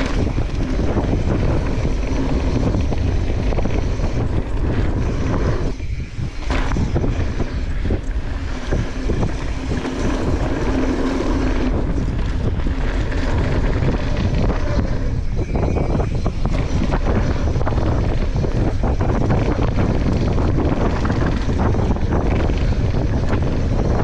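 Wind rushing over the microphone with a steady rumble and rattle of tyres and bike while riding a mountain bike down a trail.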